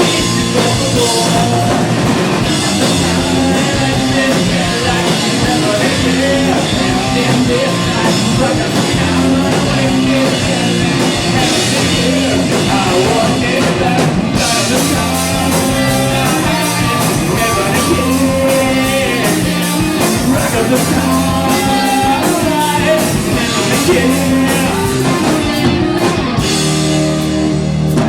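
A live rock band playing an instrumental passage on guitar and drum kit, loud and continuous.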